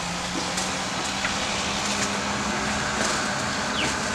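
Steady sizzling hiss of hot umu stones cooking coconut-cream sauce for fa'ausi in a wooden tanoa bowl, with a steady low hum underneath.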